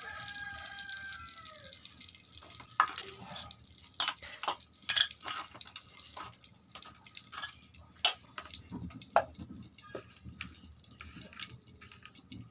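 Cooking oil heating in a karai, crackling with irregular sharp pops and spits.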